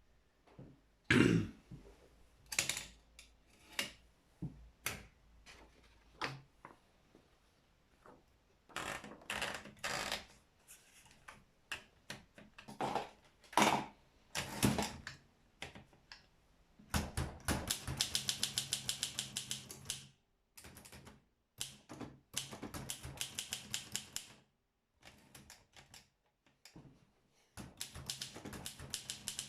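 Olympia SM7 manual portable typewriter: scattered single strikes and clunks through the first half, then typing in quick, even runs of keystrokes, about five or six a second, broken by short pauses.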